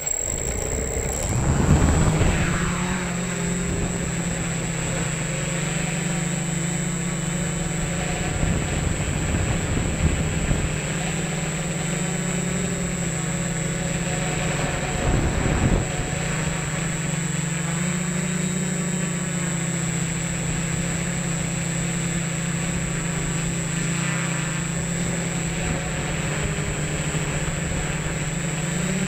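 A multirotor drone's electric motors and propellers heard from its onboard camera, spinning up about two seconds in as it lifts off the grass and then running as a steady buzzing hum in low flight, with a few brief swells in throttle. A constant high whine sits over it.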